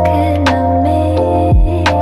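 Background music with a beat: a deep bass under held notes, a deep falling drum and sharp snare-like hits.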